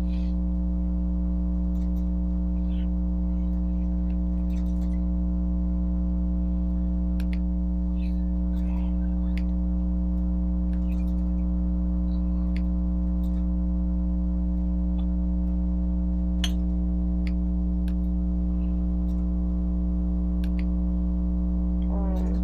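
Steady electrical hum: a low, unchanging buzz with a stack of even overtones, with a few faint scattered clicks.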